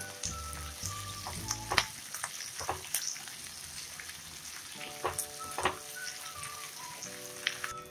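Onion and bell pepper pieces sizzling gently in a little hot oil over a low flame while being stirred, with a wooden spatula scraping and knocking against the pan several times.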